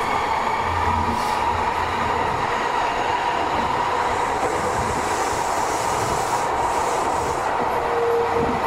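Yokohama Municipal Subway Type 10000 train, with Mitsubishi IGBT-VVVF control and linear-motor drive, running at a steady pace: continuous rolling noise with a steady whine throughout.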